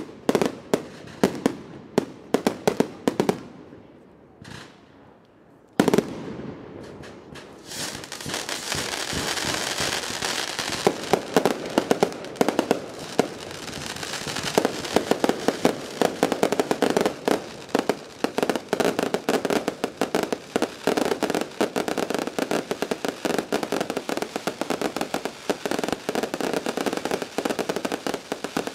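Fireworks display: a string of sharp bangs over the first few seconds, a short lull, one loud bang about six seconds in, then from about eight seconds a dense barrage of rapid crackling pops that keeps going.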